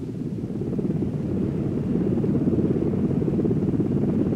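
Sikorsky H-53 helicopter in flight: a low, fluttering rumble of rotor and engine noise that fades in over the first couple of seconds, then runs steadily.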